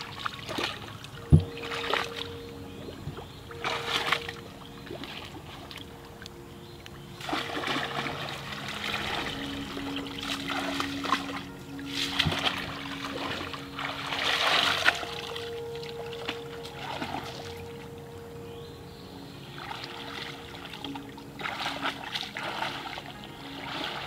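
Water splashing and dribbling in irregular bursts as a woven basket is scooped through shallow, weedy water, with a sharp knock about a second in. Quiet background music with long held notes runs underneath.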